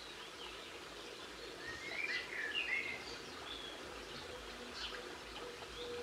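Wild garden birds singing outdoors: one phrase of short, rising and falling notes about two seconds in is the loudest sound, with scattered higher chirps from other birds over a steady background hiss.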